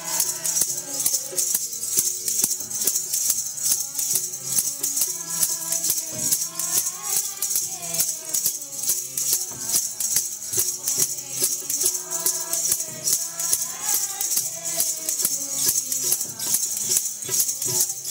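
Devotional kirtan music: a sung, wavering melody over steady held drone notes, with jingling percussion keeping a fast, even beat throughout.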